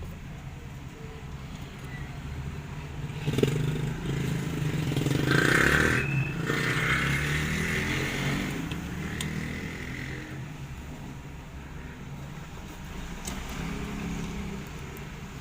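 A motor vehicle passing by: its engine grows louder about three seconds in, peaks, then fades away over the next several seconds. A few light clicks sound along the way.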